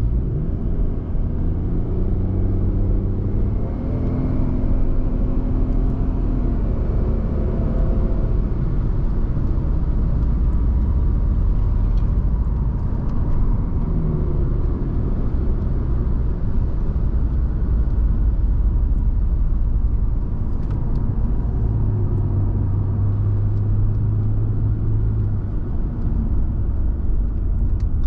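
Audi A6 2.4 V6 petrol engine and road rumble heard from inside the cabin while driving. The engine note rises as the car accelerates to motorway-like speed, then settles to a steady cruise.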